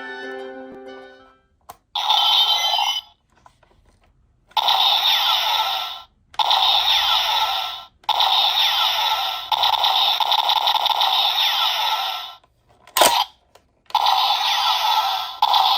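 Electronic sound effects from a DX Neo Decadriver toy transformation belt's small speaker, in several bursts a second or more long with short gaps between them. There is a sharp click about 13 seconds in.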